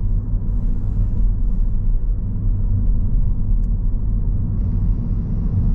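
Steady low rumble of a car's engine and tyres heard inside the cabin while driving. A faint steady hiss joins in near the end.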